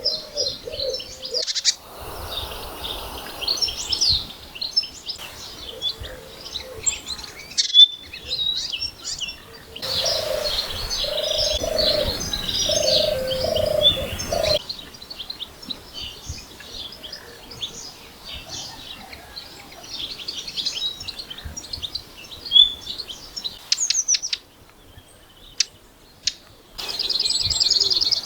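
Songbirds chirping and singing, many short high notes overlapping, with the mix of birds changing abruptly several times. About ten seconds in, a low cooing call repeats four times over the song.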